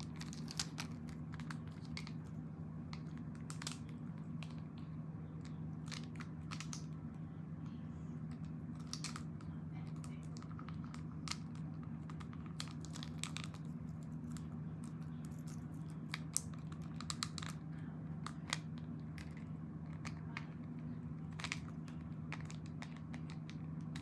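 Scattered small clicks and taps of a plastic action figure and its plastic accessories being handled, over a steady low hum.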